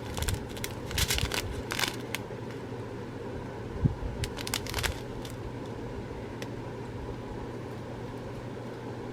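Small plastic bags of diamond-painting drills being handled, giving light crinkles and clicks in the first two seconds and again around four to five seconds, over a steady low background hum.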